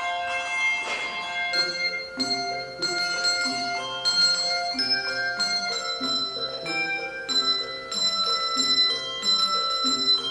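Handbell choir ringing a tune in a steady rhythm. Many handbells sound overlapping ringing notes over lower bass bells, and the regular beat settles in about a second and a half in.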